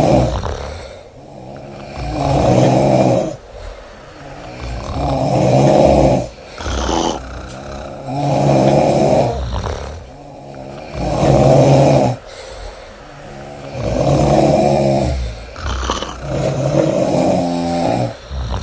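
A sleeping woman snoring loudly, a rasping pitched snore on each breath, about every three seconds.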